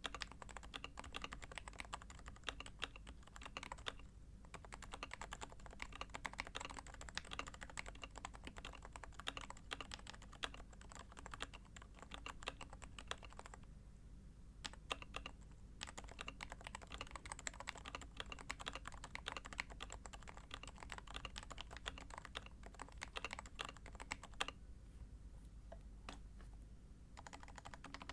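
Typing on a Sho S60v2 custom Topre keyboard: Realforce housings with 45 g OEM HHKB domes and MX sliders, DCS blank keycaps, copper plate, top mount. A fast, continuous run of muted keystrokes, thinning out briefly three times.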